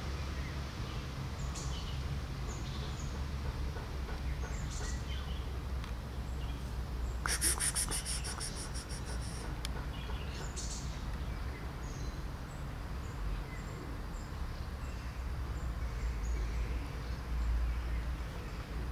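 Small birds chirping now and then over a steady low rumble, with a loud, rapid rattle lasting about two seconds some seven seconds in.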